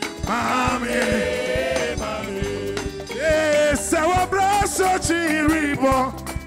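Live African gospel praise music: several singers on microphones over a band of electric bass, keyboard and drums, with a steady beat.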